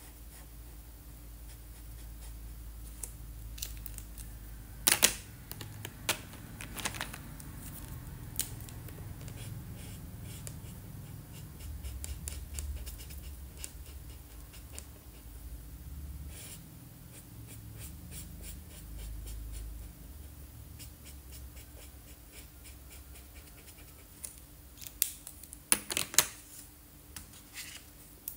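Felt-tip marker scratching and rubbing on paper while colouring, with a few sharp plastic clicks from markers being handled, then a quick cluster of louder clicks near the end.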